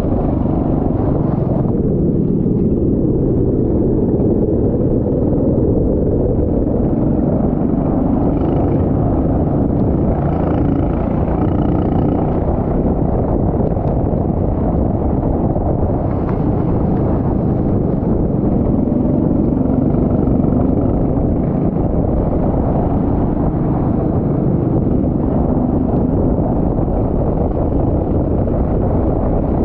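Go-kart engine running steadily, with heavy wind rumble on the microphone.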